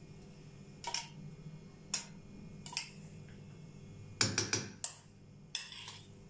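Metal spoon clicking against a metal bowl and pan rim while syrup is ladled out: single sharp clinks about a second apart, then a quick run of several clinks a little past four seconds in.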